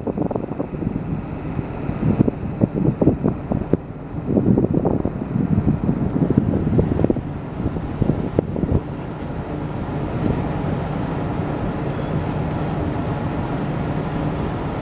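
Wind buffeting the microphone in irregular gusts over a low, steady ship-engine hum. After about ten seconds the gusts ease and the even hum is left.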